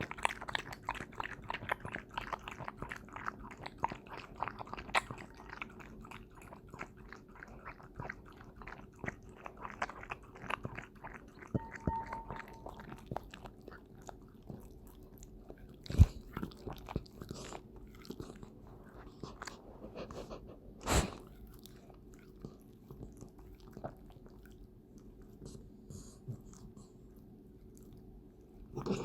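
Welsh Corgi lapping milk from a bowl: a fast run of wet tongue laps that thins out about halfway to occasional laps and licks. Two louder knocks come in the second half.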